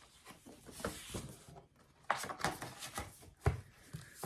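A hardback book being handled: paper dust jacket and pages rustling with light taps, and a soft thump about three and a half seconds in.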